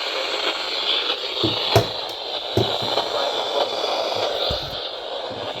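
Steady radio static hiss from a weather radio receiver on a weak, noisy signal, with scattered crackles and a few low thumps; the sharpest crackle comes a little under two seconds in.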